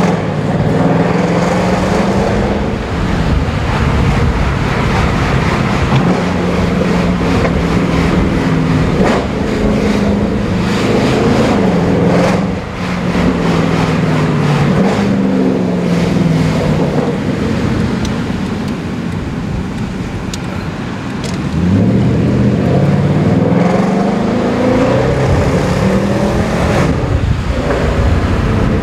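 Mercedes-Benz C63 AMG's V8 exhaust heard from inside the cabin, accelerating in repeated rising pulls, each falling back at a gear change. About eighteen seconds in it eases to a quieter cruise, then pulls hard again.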